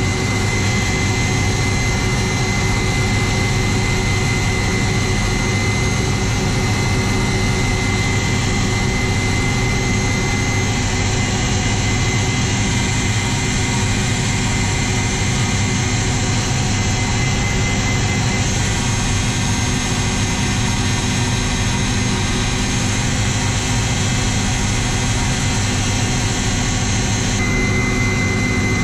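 Steady cabin noise of a Kamov Ka-226 helicopter, its twin turboshaft engines and coaxial rotors running: a deep rumble under a steady high turbine whine.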